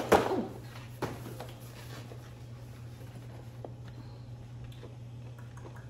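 Cardboard product box handled and lifted: a loud bump and rustle at the start, a light tap about a second in, then a few faint taps over a steady low hum.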